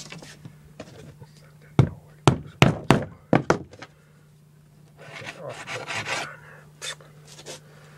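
A claw hammer and hand tools knocking against the nails and wooden stretching board of a nailed-out beaver pelt: about seven sharp knocks within two seconds, then a scraping rub, with a steady low hum underneath.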